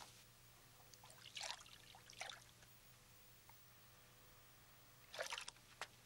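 Near silence: room tone with a faint low hum and a few faint short rustles, about a second and a half in, around two seconds in, and twice near the end.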